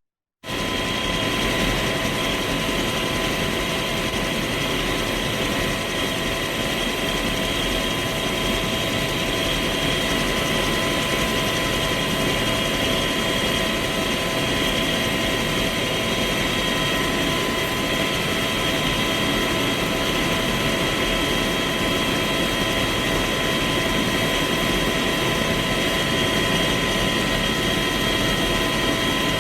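Bell UH-1 Huey helicopter heard from inside the cabin, its turbine engine and rotor running steadily at idle: a constant whine over a low rumble, starting about half a second in.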